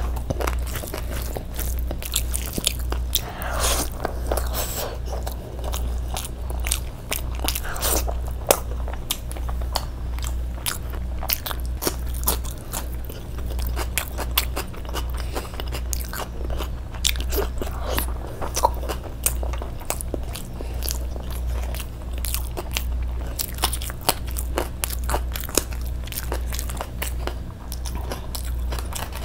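Close-miked eating: a person chewing mouthfuls of chicken and fried rice eaten by hand, a dense run of short wet mouth clicks and smacks, over a steady low hum.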